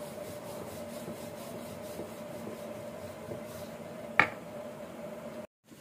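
A wooden rolling pin rubs back and forth as it rolls out paratha dough on a rolling board, over a steady low hum. About four seconds in there is one sharp knock, the loudest sound, and near the end the sound cuts out abruptly.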